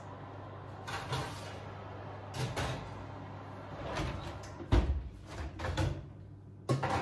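Kitchen oven door and a metal roasting tin being handled as the oven is opened and loaded: a series of separate knocks and clunks, the heaviest a dull thud just under five seconds in.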